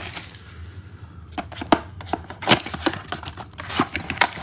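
Cardboard trading-card blaster box being torn open at its end flap and handled. About a second and a half in, a run of sharp, irregular crackles and snaps begins as the glued flap rips and the box is worked open.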